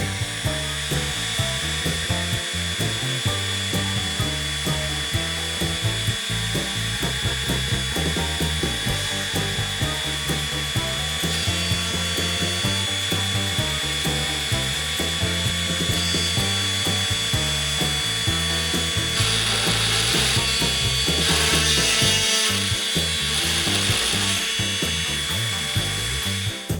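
A DIY mini CNC router running a job: its spindle gives a steady high whine while the axis motors move it in short shifting tones, and the bit cuts into wood. The cutting noise gets louder in spells over the last third.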